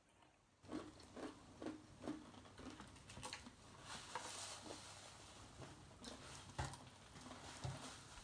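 Close-up eating sounds: crunching and chewing of fried chicken, a run of irregular crisp clicks and crunches that starts about half a second in.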